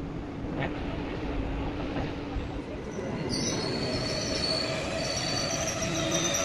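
Indian Railways passenger train running with a low rumble as it rolls slowly along a station platform. About three seconds in, a high-pitched squeal of wheels and brakes starts, several steady tones at once, and holds as the train slows to stop.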